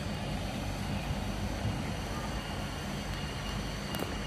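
Heavy diesel engine running steadily at low revs, an even low hum, with a brief click near the end.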